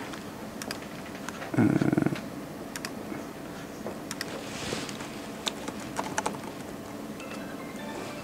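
Irregular keystrokes on a laptop keyboard as a username and password are typed in, with a short low buzz about two seconds in.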